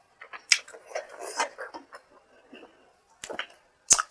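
Close-up eating sounds: chewing and wet mouth noises in short bursts, then a sharp click about four seconds in.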